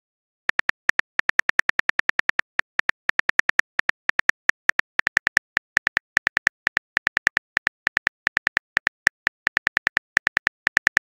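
Phone keyboard typing sound effect: a rapid, uneven run of short, identical key clicks, about five a second, starting about half a second in, as a text message is typed out letter by letter.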